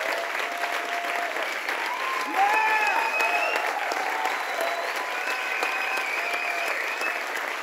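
A concert audience applauding steadily. Cheering voices and whistles rise over the clapping from about two and a half seconds in.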